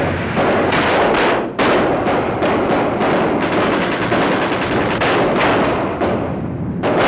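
Battle sound effects: continuous, rapid gunfire with sharp bangs, mixed with a film score's drums.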